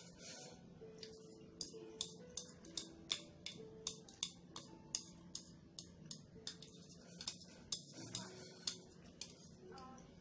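Chopsticks clicking and scraping against a ceramic bowl in quick, irregular taps as noodles are shovelled from the tipped-up bowl into the mouth. Faint background music with a slow melody plays underneath.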